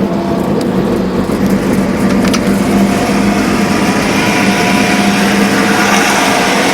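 Intercity bus engine and exhaust at steady high cruising speed, a low, steady drone with a growling ('ngorok') exhaust note. Road and wind noise builds up after about three seconds.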